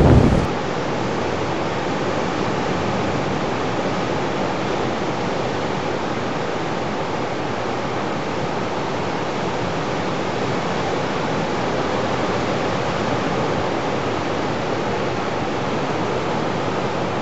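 Surf breaking on a beach, heard as a steady, even roar that cuts off suddenly at the end.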